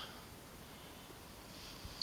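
Quiet outdoor background: a faint steady hiss with a soft click near the end.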